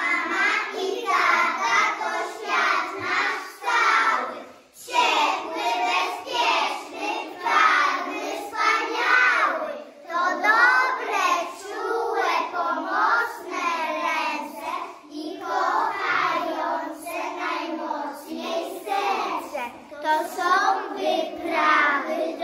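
A group of young children singing a song together in Polish, in phrases with short breaks about four and ten seconds in.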